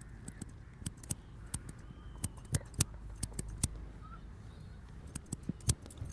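Barber's scissors snipping: a run of quick, crisp snips in irregular clusters, a few of them louder than the rest.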